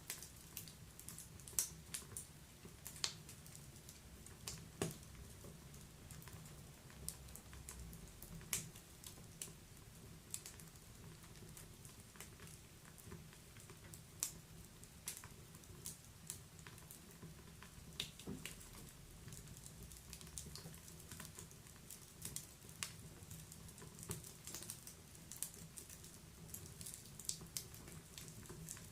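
Wood fire in a fireplace crackling quietly, with irregular sharp pops and snaps over a soft steady low rumble.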